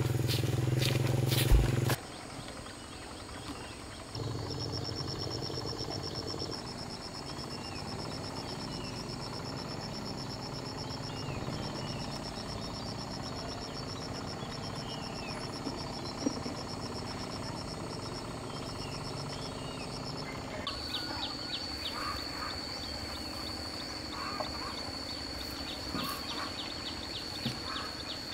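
Rural outdoor ambience: short bird chirps over a steady, high, pulsing trill, later a steady high whine with fine ticking. A low engine-like drone in the first two seconds cuts off suddenly.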